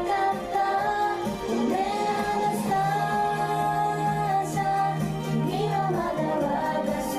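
Pop song playing, with female voices singing long held notes over the band.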